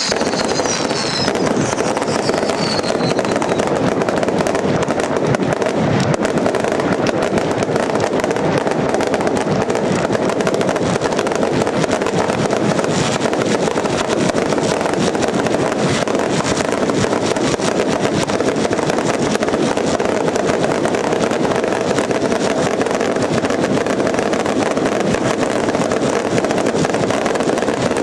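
Fireworks barrage: a dense, unbroken rattle of crackling bursts and bangs, with a few falling whistles dying away in the first few seconds.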